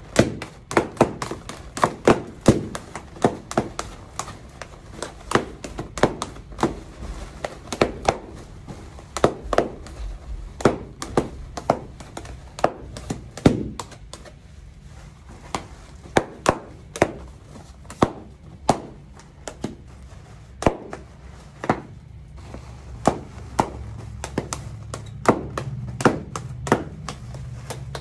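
Small latex balloons bursting one after another, a sharp pop about once or twice a second, dozens in a row.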